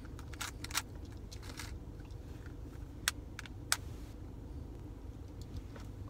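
Plastic 3x3 Rubik's cubes being turned and handled, giving a scattering of sharp clicks, the loudest a little under a second in and twice around three seconds in, over a steady low car-cabin rumble.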